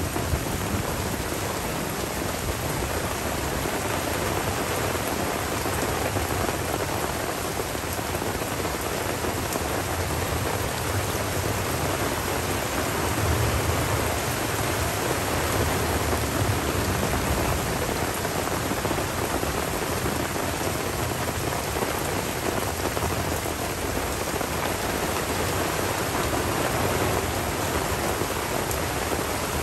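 Steady tropical rain falling on forest leaves and a dirt track, with low rolling rumbles of thunder swelling a few times, strongest just past the middle.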